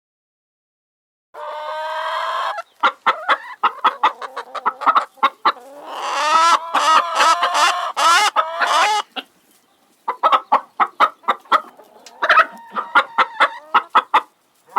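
Chickens clucking in quick runs, with longer drawn-out calls near the start and through the middle.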